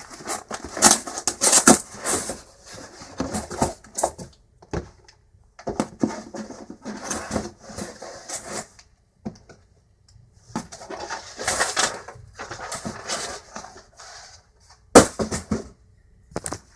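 Packaging handled during an unboxing: cardboard and plastic rustling and scraping in irregular bursts with short pauses, and a sharp snap near the end.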